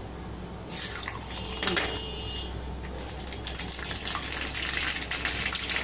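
Hot oil in a small tempering pan on a gas flame starts sizzling about a second in, as mustard seeds go in. A short metallic clink follows, then the oil crackles and pops densely.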